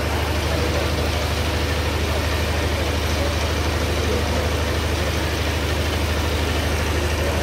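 An engine running steadily at idle, a low, even throb that does not change.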